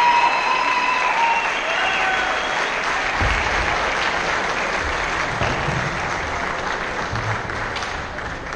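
Audience applauding, with a few whoops and cheers in the first couple of seconds, the clapping slowly fading toward the end.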